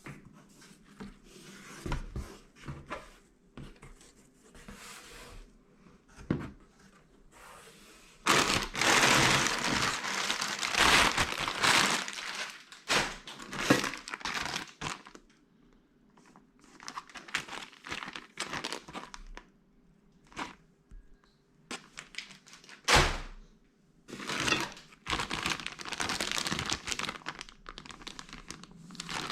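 Packaging being unwrapped: crinkling and tearing of the wrapping in irregular spells, with occasional knocks as the box and parts are handled.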